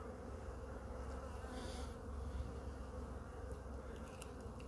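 Honeybees from an opened hive humming steadily, the colony covering a brood frame held up in the open.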